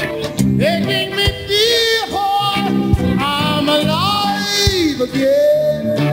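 Live band music: a male lead singer holds long notes that slide in pitch over electric guitars and drums, with a steady low drum beat.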